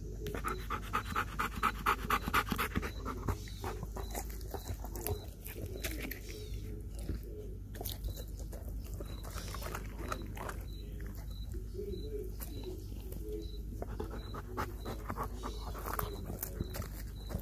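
Belgian Malinois panting fast and hard, loudest in the first few seconds, while it tears at and chews a whole raw chicken with scattered clicks of bone. The dog is winded from a workout.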